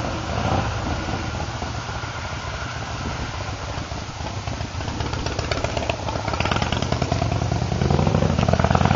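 Motor vehicle engine running with a low steady hum, growing louder with a rising pitch over the last few seconds, then dropping off sharply at the end.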